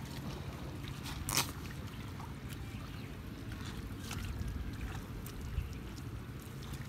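Hands groping and splashing in shallow muddy paddy-field water, with scattered small splashes and squelches and one sharper splash about a second and a half in, over a low steady rumble.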